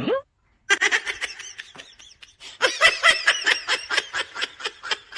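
A person laughing hard in a long run of quick, repeated bursts. It starts just after a short sound effect that falls in pitch.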